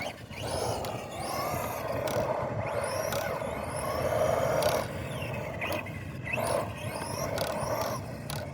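Arrma Senton 4x4 RC truck's 3S brushless motor whining up in pitch over and over as it is throttled hard. Under it runs a steady noise of the tyres on the ground, with a few sharp clicks.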